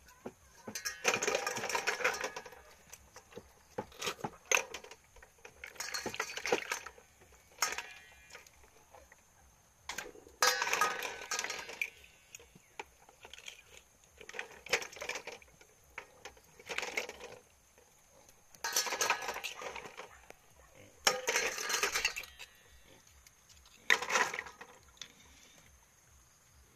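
Snail shells and a fork clinking and scraping against each other and a metal basin of water, in bursts about a second long every two to three seconds.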